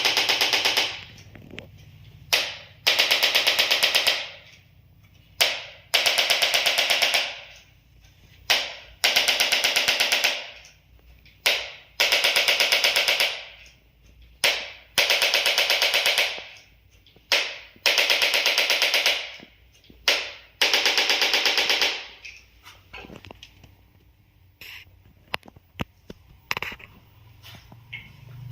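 Handheld electric percussion tool rattling out rapid pulses in bursts of about a second and a half, eight bursts a few seconds apart, then a few faint clicks near the end.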